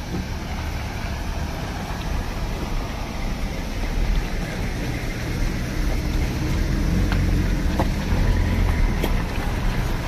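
A vehicle driving over a rough, broken road: a steady engine and road rumble, a little louder in the second half, with scattered knocks and rattles.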